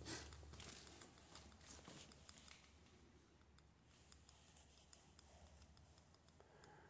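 Near silence: faint room tone with scattered soft crunches and clicks, the loudest just after the start and a few more about two seconds in.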